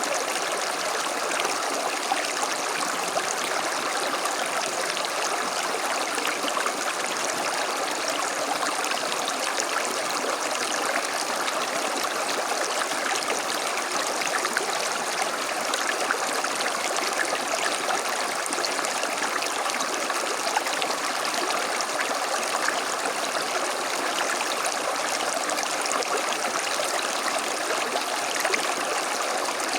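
Creek water running steadily over stones, a continuous rushing babble with small splashes and gurgles flickering through it.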